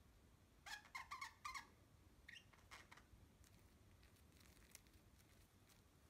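Budgerigars giving a quick run of soft, short chirps about a second in, then two more single chirps, followed by scattered faint clicks.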